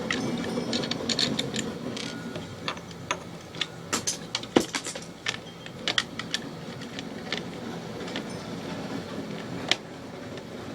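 Plastic Lego bricks clicking and rattling as pieces are handled and snapped together: irregular sharp clicks, busiest in the middle, over a low steady hum.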